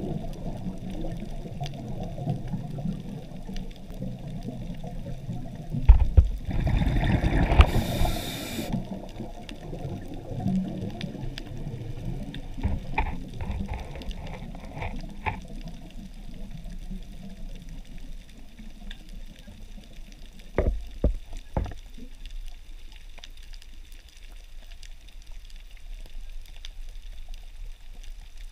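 Underwater ambience picked up through a camera housing: a steady low rush of water, with a louder rushing burst that lasts a couple of seconds about six seconds in. A few sharp clicks come later.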